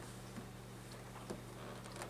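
Faint steady electrical hum with a few soft clicks, like small handling sounds.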